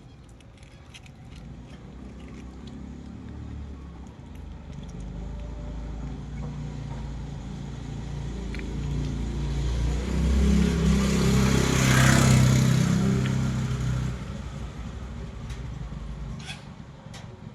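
A motor vehicle passing by: its engine hum and tyre hiss grow steadily louder, peak about two-thirds of the way through, then fade away.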